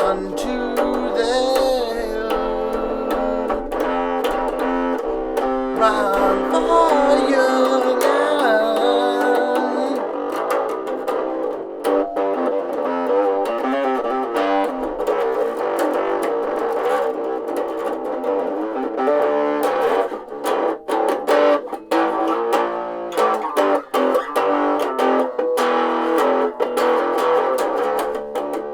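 Electric bass played through a tiny battery-powered amp: a steady run of picked riffs, thin and with little deep bass. The first part has bent, wavering notes, and about twenty seconds in the playing turns to shorter, choppier notes.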